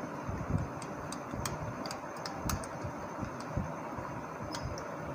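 Metal spoon stirring a thick yogurt-and-spice batter in a bowl, with irregular light clicks of the spoon against the bowl over a steady background hiss.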